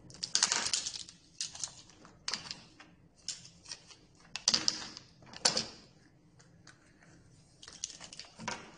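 Wooden-handled silicone kitchen utensils clattering and knocking together as they are gathered up and slid across a tabletop: irregular clusters of clicks and knocks, loudest about half a second in and again around four and a half to five and a half seconds in.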